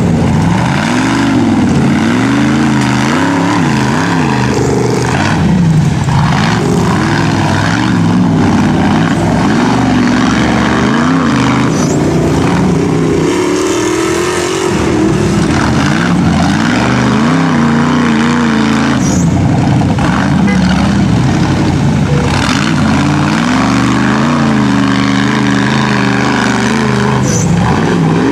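Rock bouncer buggy engines revving hard under load on a steep dirt and rock climb, the pitch rising and falling again and again as the throttle is worked.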